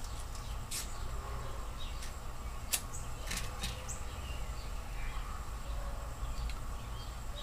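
A few sharp clicks and a strike, the loudest a little under three seconds in, as a flame is lit for a tobacco pipe, over a steady low hum with faint birds and insects chirping outdoors.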